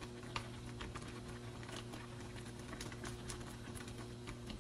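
Rice vermicelli cooking in a wok of hot water as chopsticks stir it: faint, irregular small clicks and crackles from the water and the chopsticks against the wok, over a faint steady hum.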